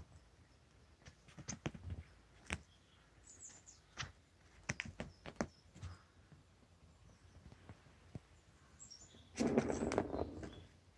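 Kitten at play with a feather wand toy on carpet: scattered light taps and clicks of paws, pounces and toy, then a louder burst of scuffling lasting about a second near the end.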